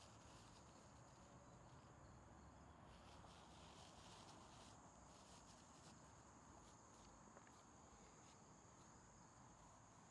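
Near silence: faint room or background hiss with a thin, steady high-pitched tone.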